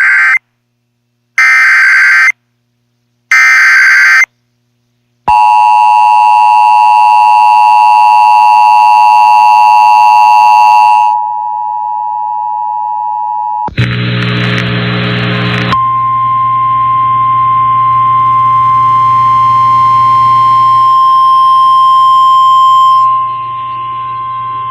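Weather radio emergency alert tones: the last of three short bursts of digital header data, then a two-note attention signal about five seconds in that drops in level near eleven seconds, a brief burst of noise, and a single steady warning tone for about nine seconds that ends just before the warning is read out.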